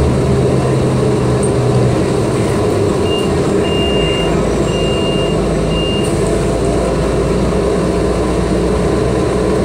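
City transit bus heard from inside the passenger cabin as it drives: steady engine rumble and road noise. Four short, high electronic beeps sound between about three and six seconds in.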